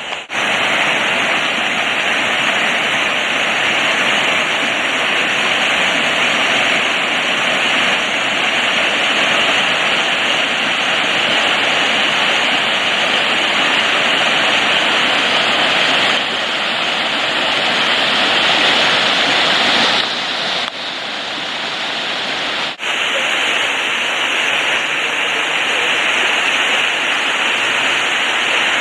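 Crabtree Falls cascading: a steady, loud rush of falling water, with a few sudden shifts in level along the way.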